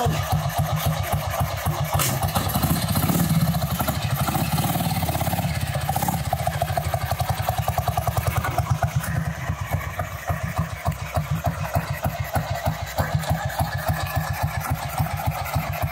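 Sanglas 500 single-cylinder four-stroke motorcycle engine running with an even, regular beat as the sidecar chopper is ridden slowly around and back.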